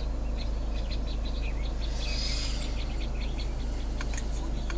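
Young owls calling among short bird chirps, from a nature documentary soundtrack playing over the car stereo. A steady low hum runs underneath.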